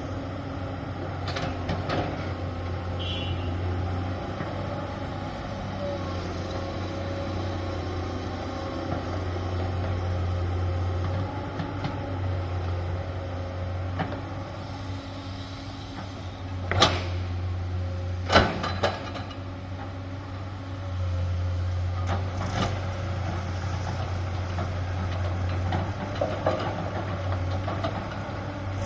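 Diesel engine of heavy road-building machinery running steadily, its note rising and falling slightly, with a few sharp knocks, the two loudest coming about a second and a half apart a little past the middle.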